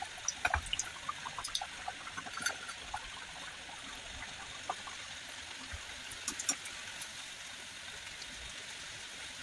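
A poori deep-frying in hot oil in a kadhai: a steady sizzling hiss with scattered crackles and pops, busiest in the first few seconds and again about six seconds in.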